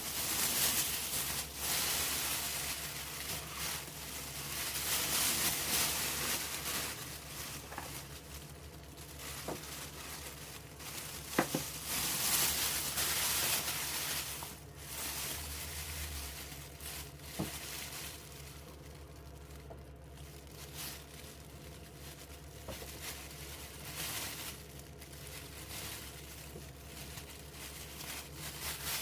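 Plastic oven bag crinkling and rustling in swells as it is handled, with a couple of small knocks.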